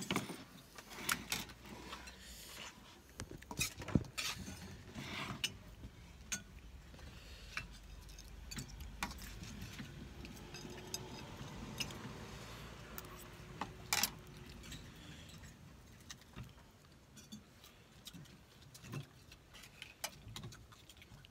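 A metal spoon clinking and tapping against a plate and bowl while eating, in scattered sharp clicks. A faint low hum swells and fades in the middle.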